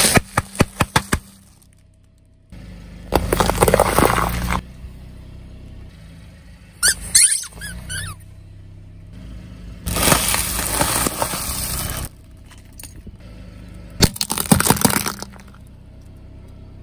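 A car tyre crushing a run of objects one after another. It opens with a quick series of sharp plastic cracks, then a longer crackling crunch of potato-chip bags, then a rubber squeeze toy squeaking as it is flattened, and after that two more noisy crushing bursts.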